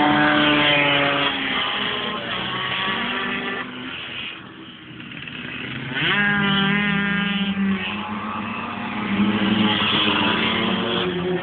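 Racing motorcycle engines at full throttle: one fades away over the first few seconds, then another comes up with rising pitch from about six seconds in and passes close near the end.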